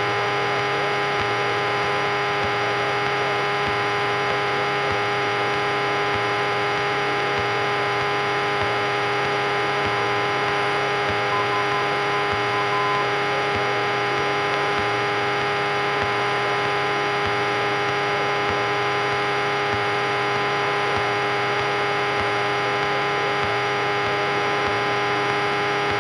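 Cessna 172 engine and propeller droning steadily in level cruise flight, a constant hum with several fixed tones heard in the cockpit, with no change in power.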